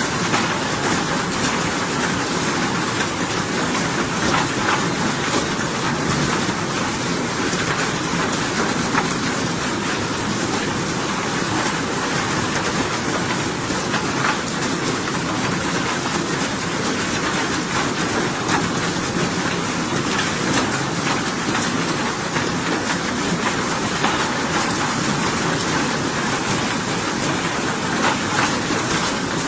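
Steady rainfall as a white-noise track: an even, unbroken hiss with faint scattered drop sounds.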